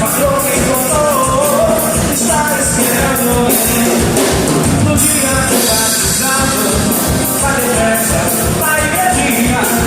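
Upbeat band music with a steady drum beat and a lead singer.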